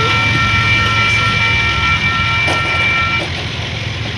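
Railroad crossing's WCH electronic bells ringing steadily as the gate arms rise, cutting off about three seconds in. A steady low rumble runs underneath.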